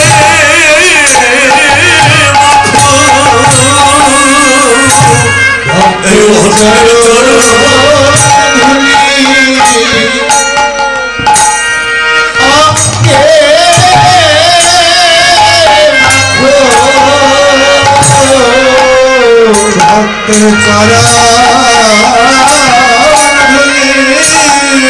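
Bengali devotional kirtan music: a khol drum beating a steady rhythm under a wavering melody line played on harmonium and other accompaniment.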